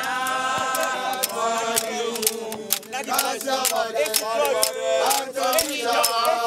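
A group of men's voices singing a chant together, over frequent sharp percussive strikes.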